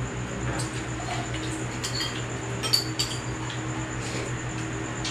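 Metal spoons clinking against ceramic bowls a few times, each clink ringing briefly, over a steady low hum.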